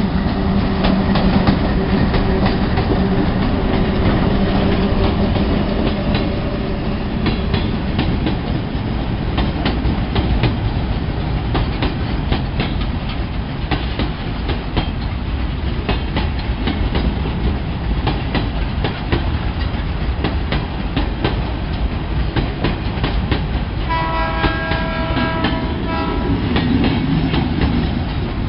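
Two ALCo RSD16 diesel locomotives drone past, their engine note fading after several seconds. A long freight train of hopper wagons and boxcars follows, rolling by with a steady clickety-clack of wheels over the rail joints. Near the end a brief horn sounds.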